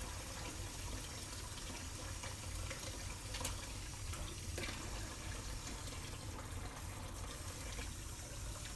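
Kitchen sink tap running steadily while hands are washed under the stream, with a couple of faint clicks about three and a half and four and a half seconds in.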